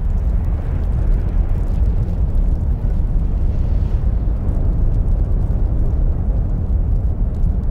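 A loud, steady deep rumble, like a roar, with no distinct bangs.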